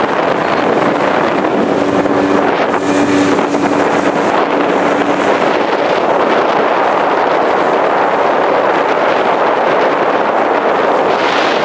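Small open boat under way at speed: wind buffeting the microphone over the steady drone of its outboard motor and the rush of water along the hull. A steady engine note stands out from about two to five seconds in.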